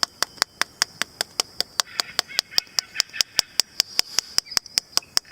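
Quick, evenly spaced tapping clicks, about five a second, going on steadily.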